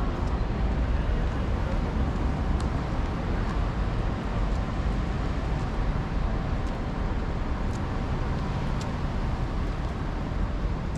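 City street traffic noise: a steady rumble of passing vehicles, with a faint steady hum and a few light ticks.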